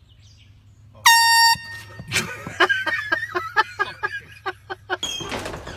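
An air horn blasts once, briefly and loudly, about a second in. It is followed by a person's voice in quick, rhythmic bursts, about three a second, for a few seconds.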